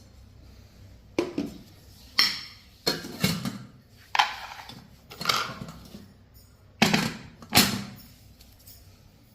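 Knocks and clinks at irregular intervals, about seven or eight in all, as the parts of a stainless steel electric kettle are handled and set down. A few of the knocks ring briefly.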